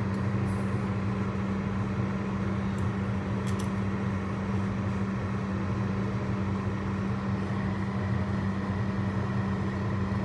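A steady low mechanical hum, unchanging in level, with a few faint ticks in the first few seconds.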